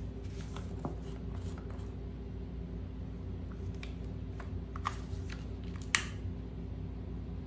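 Handling noises from a plastic jar of powder paint being shaken and opened: light rattles and clicks. A sharp click comes about six seconds in as a long-nosed utility lighter is triggered at a tea light candle. A steady low hum runs underneath.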